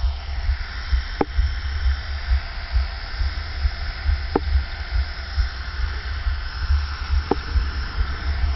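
Wind buffeting the microphone, over the faint steady whine of an HK 450 electric RC helicopter's motor and rotors in a low hover. Three brief ticks come about three seconds apart.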